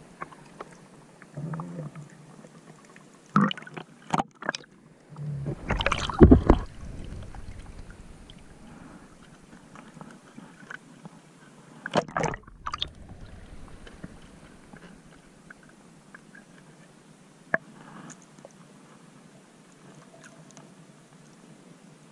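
Shallow seawater sloshing and gurgling around a camera dipping in and out of the water at the surface, with sudden louder sloshes: a couple a few seconds in, a longer low rumbling one about six seconds in, and another about twelve seconds in.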